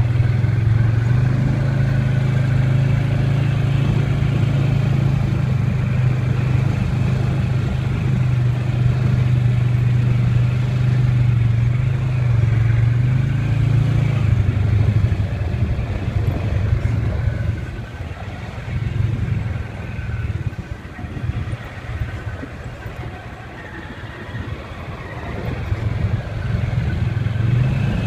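Off-road vehicle's engine running at steady throttle while it rides a dirt trail. About halfway through it eases off and goes quieter and uneven, then picks up again near the end.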